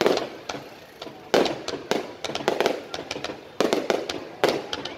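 Aerial fireworks shells bursting overhead in a rapid, irregular volley of sharp bangs, several a second, each trailing off in an echo; the heaviest bangs come about a second and a half in and again near the end.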